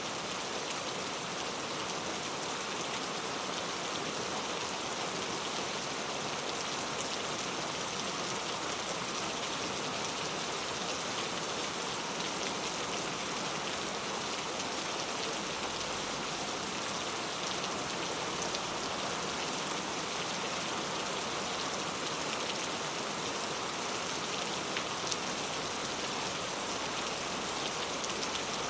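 Steady rain falling into a puddle: an even hiss of drops with many fine splashes, holding level throughout, no thunder heard.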